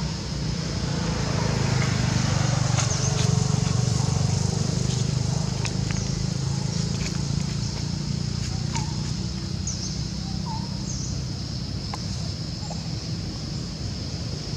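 Outdoor background: a steady low rumble that swells for a few seconds near the start, under a constant high-pitched drone, with a few brief scattered chirps and small clicks.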